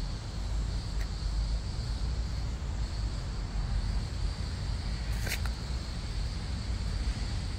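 Outdoor background noise: a steady low rumble with a thin, steady high-pitched tone over it, and one sharp click about five seconds in.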